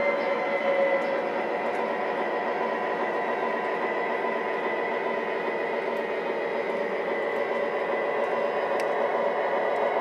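O-gauge model train running on the track: a steady whirring hum with a constant faint whine from its electric motor and wheels.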